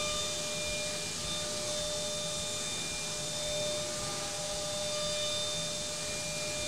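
DATRON CNC milling machine running: a steady high-speed spindle whine over a constant hiss of spray coolant, while the part is indexed on the tilting rotary axis. Fainter higher tones drop out and return partway through as the axes move.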